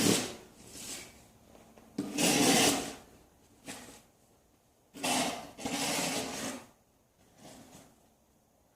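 Snow shovel scraping through snow, in repeated strokes a couple of seconds apart, with a few shorter, fainter scrapes between.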